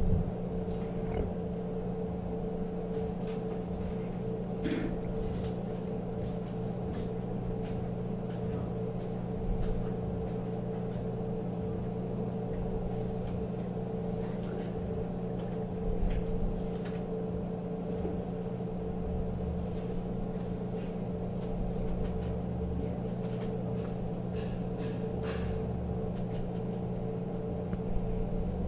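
Steady low hum with scattered light clicks and taps from a small Phillips screwdriver and screws being driven back in to secure a receipt printer's autocutter.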